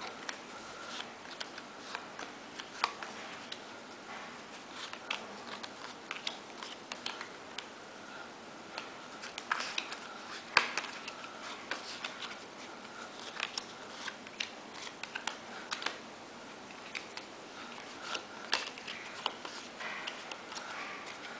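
Playing cards being handled and dealt from small piles onto a hardwood floor: irregular light clicks and taps as cards are slid off, snapped and set down, a few at a time.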